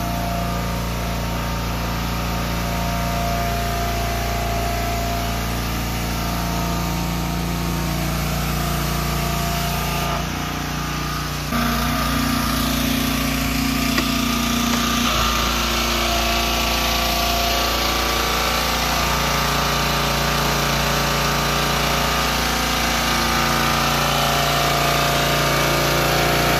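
Small engine of a 3200 PSI pressure washer running steadily. About ten seconds in its note dips briefly, then picks up a little louder with a changed pitch.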